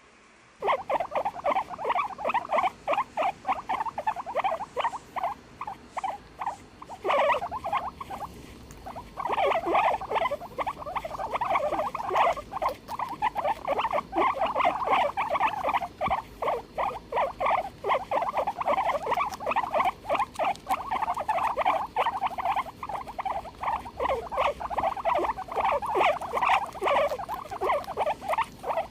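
Guinea pig squealing in a rapid, unbroken string of short, high calls, starting about half a second in, with a brief lull about eight seconds in.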